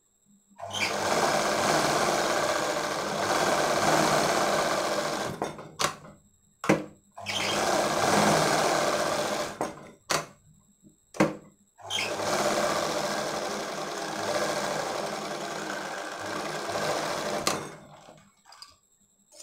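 Sewing machine stitching a lining seam in three runs of steady running, each a few seconds long, with short sharp clicks in the pauses between runs.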